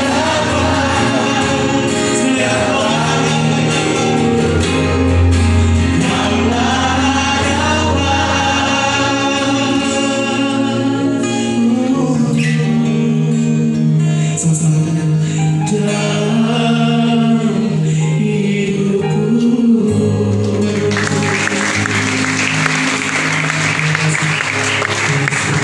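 A gospel song sung with instrumental accompaniment, the voice gliding through held notes over steady bass. Applause breaks out near the end as the music carries on.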